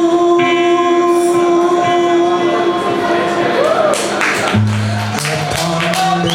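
Live band music: one long held note for the first half, then a bass line comes in stepping through low notes about two-thirds of the way through.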